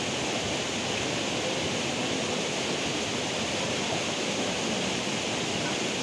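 Steady, even rushing noise of falling water, with no distinct events.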